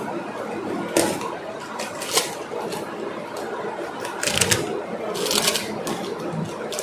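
Objects being handled at close range: rustling with scattered clicks and knocks, and two short bursts of clatter a little past the middle.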